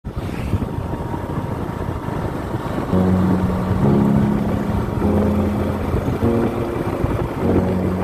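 Steady rush of wind and road noise from riding along a road in a moving vehicle. About three seconds in, background music with held notes that change roughly once a second comes in over it.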